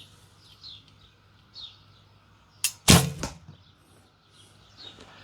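A recurve bow with Nik'a S2 Windstorm ILF limbs shot once, about three seconds in: a short click, then a louder sharp thump of the string's release with a brief ringing tail. Birds chirp repeatedly in the background.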